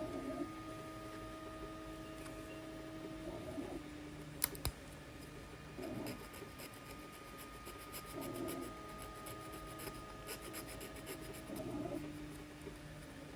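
Scratching and small clicks of hardened support material being scraped and picked off a 3D print, with one sharp click partway through. A low hum comes and goes twice, each time starting and ending with a short scuffle.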